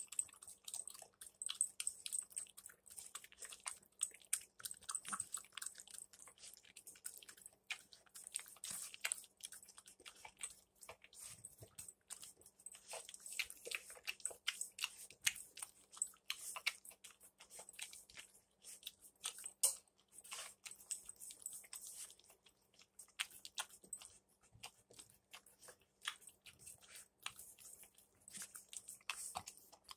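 Mastiff puppy eating dry kibble from a stainless steel bowl: irregular crunching and chewing with many sharp clicks.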